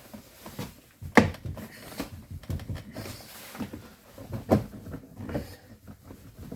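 Interior door trim panel being pried off a VW Touareg: scattered sharp plastic clicks and knocks as the panel and its retaining clips are worked loose, the loudest about a second in and again around four and a half seconds in.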